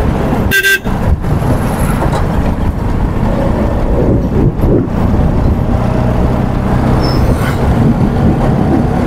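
Busy street traffic with engines running, and one short vehicle horn toot about half a second in.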